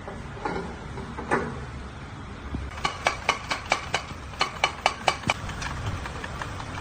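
Metal tools clicking and knocking while a stabilizer bar is fitted to the car: a few single knocks, then a quick run of sharp metallic clicks, about three or four a second, between about three and five seconds in.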